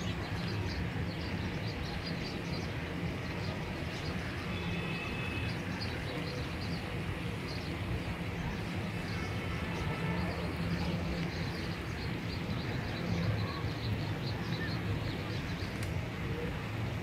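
Steady outdoor ambience: a constant low rumble under an even hiss, with faint bird chirps.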